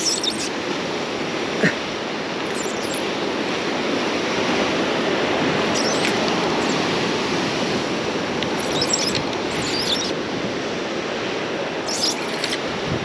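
Ocean surf breaking on rocks below, a steady rushing wash that swells a little midway. A few brief high scratchy sounds come through now and then, with a single click near the start.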